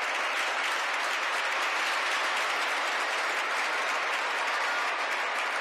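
Spectators applauding, a dense and steady clapping of many hands.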